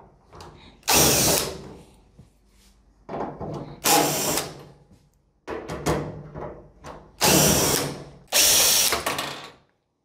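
Ryobi cordless drill/driver running in several short bursts as it backs screws out of a clothes dryer's sheet-metal front panel.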